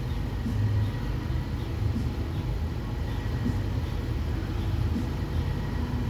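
2021 Nissan Sentra's engine idling steadily while an idle air volume relearn runs.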